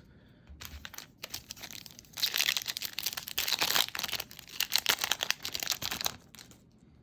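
A foil trading-card pack wrapper being torn open and crinkled by hand: a few light crackles, then about four seconds of dense, fast crinkling that stops suddenly near the end.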